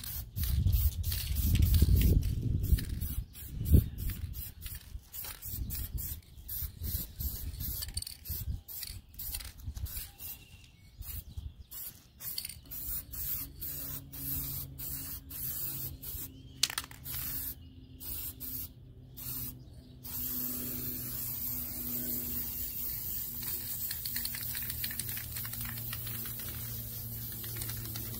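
Aerosol spray-paint can coating an engine block, hissing in many short bursts and then in one continuous spray from about two-thirds of the way in. A low rumble and a thump in the first few seconds.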